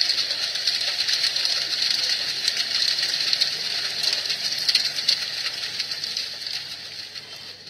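Recorded crackling-fire sound played through the small speaker of a talking-book reader pen: a dense hiss of fine crackles that fades away near the end.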